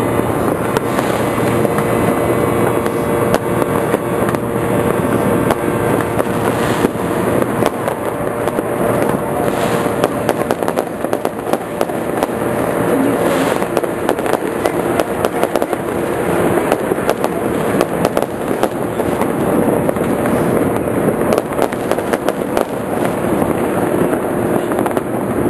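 Fireworks going off without pause: a dense, continuous crackle and popping of many firecrackers, with aerial shells bursting overhead.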